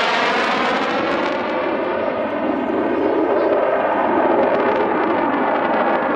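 BAE Hawk jet trainer flying past overhead, the steady, loud rush of its Adour turbofan with faint bands falling in pitch as it goes by.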